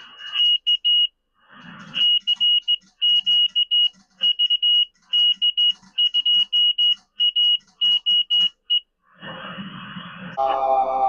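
Morse code (CW) sent as a high-pitched tone keyed in short and long elements, the sidetone of a QRP transceiver as it keys the HF amplifier under test. Radio hiss comes before and after it, with a brief cluster of falling tones near the end.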